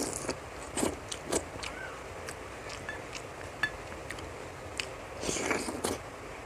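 A person eating close to the microphone: bites and chewing, with scattered short sharp clicks and a longer noisy stretch about five seconds in.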